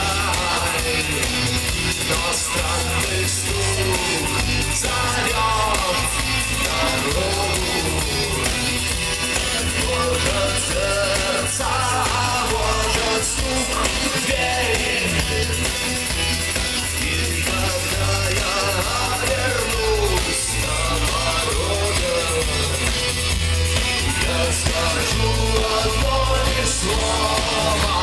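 Live rock band playing loud and steady: pulsing bass and drums under electric guitars and a wavering melodic lead.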